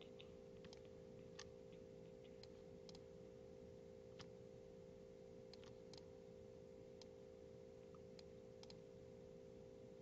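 Faint computer mouse clicks, about a dozen at irregular intervals, over a steady hum.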